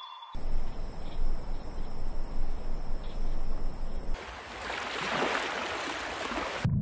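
Tropical forest ambience with insects making a steady high-pitched trill for about four seconds, then a louder rushing hiss that cuts off abruptly near the end.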